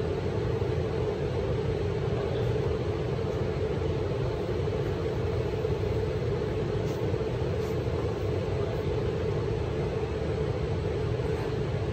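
Steady low rumble with a constant hum, the sound of building ventilation running.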